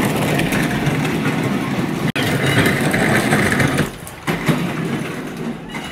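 Hard plastic wheels of a Little Tikes Cozy Coupe ride-on toy car rumbling as it is pushed across a concrete floor, easing off briefly about four seconds in and then going on.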